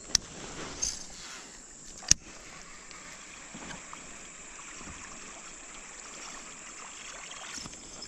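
Steady rush of river water around a kayak, with two sharp knocks about two seconds apart.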